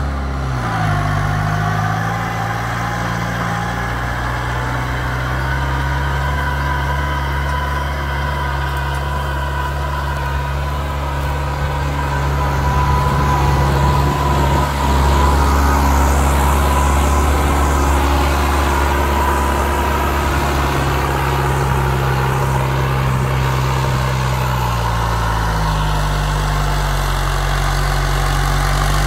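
New Holland TD90D tractor's diesel engine working steadily under load as it pulls a plough through the soil, with a steady whine over the engine note. The engine picks up revs in the first second and its note shifts slightly near the end.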